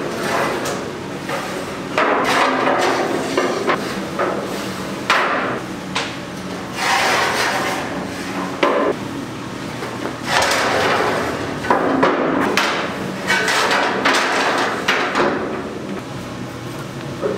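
Expanded-metal cooking grates scraping along their rails and clanking as they are slid into a steel offset smoker's chamber, several times over, with sharp metal knocks between the scrapes.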